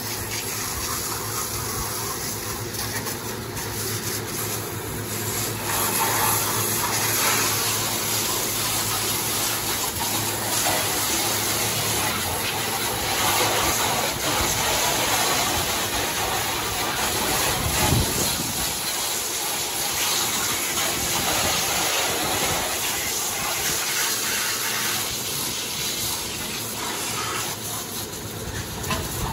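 High-pressure water jet from a pressure washer spraying onto a car, a continuous hiss and splatter whose strength shifts as the jet moves over the surfaces, with a steady low hum underneath.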